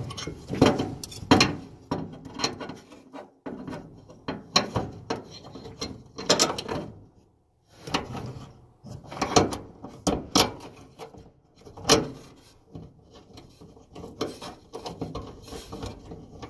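Irregular clicks, knocks and rattles of tools and dryer parts being handled while fitting a new belt idler pulley into a Samsung dryer, in uneven clusters with a short pause about seven seconds in.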